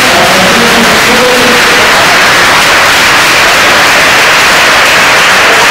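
Loud, steady wash of distorted noise from overloaded audio in a boxing gym hall, with faint music in the first second or so.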